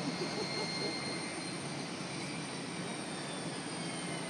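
Airliner jet engines running: a steady rushing noise with a faint high whine that slowly drops in pitch.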